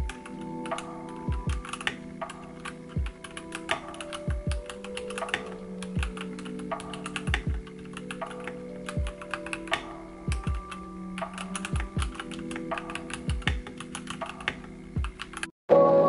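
Typing on an iLovBee i87 mechanical keyboard with stock red linear switches: a fast, uneven run of key clacks that stops abruptly near the end.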